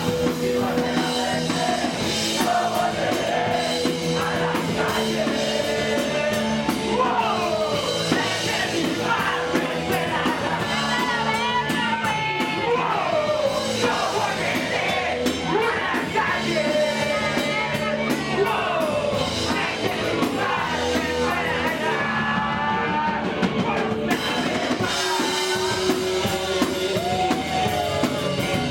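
Live punk rock band playing: sung and yelled vocals over electric guitar and a drum kit.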